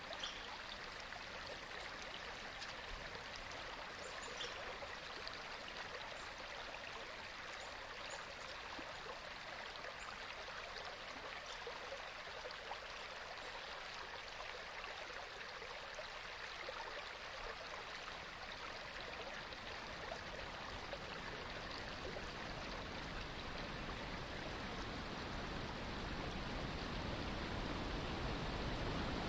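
Steady, faint rushing noise of running water, like a stream, with no pitch or rhythm; it swells slightly near the end.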